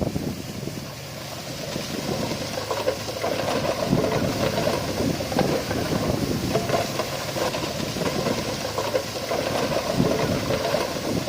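Diesel engine of heavy earth-moving machinery running, growing louder over the first few seconds and then holding steady, with scattered irregular knocks.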